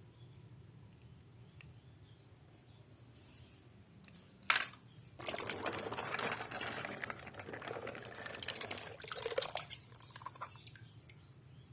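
A sharp knock about four and a half seconds in, then about four seconds of dense crackling, rustling noise that stops near the end.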